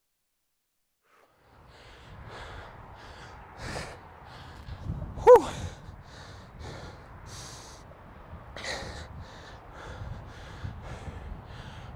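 A man breathing hard after a hill sprint, panting in quick, regular breaths close to the microphone, with one short, loud grunt-like gasp about five seconds in. The sound begins about a second and a half in, after silence.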